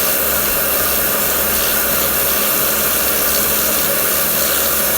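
Karcher K2 electric pressure washer running steadily, its motor and pump humming under the hiss of the Vario lance's high-pressure water jet.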